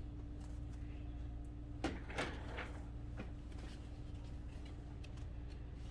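Soft handling noises from the Echo Studio speaker as it is moved: two light knocks and rustles about two seconds in, over a steady low hum.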